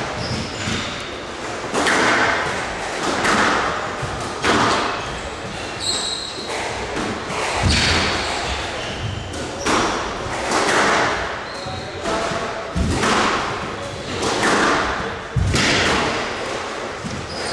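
Squash rally: the ball is struck by the rackets and smacks off the court walls about once every second or so, each hit echoing through the hall.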